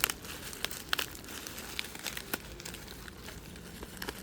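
Plastic wrapping and bubble wrap crinkling as a package is unwrapped by hand, with a few sharp crackles.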